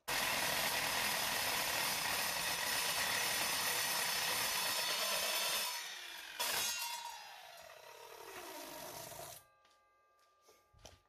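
Evolution multipurpose mitre saw starting up and cutting through a metal bar, with a loud steady cutting sound for about six seconds. The saw is then switched off and its blade's whine falls in pitch as it spins down over about three seconds. A few faint clicks follow near the end.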